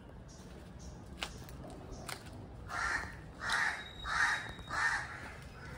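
An animal calls four times in quick succession, short calls about two-thirds of a second apart.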